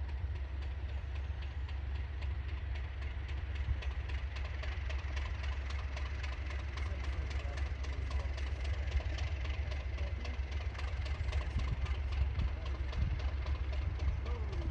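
Heritage diesel locomotive engine running with a heavy low drone and a rapid, regular clatter, plus a faint high whine, growing slightly louder towards the end.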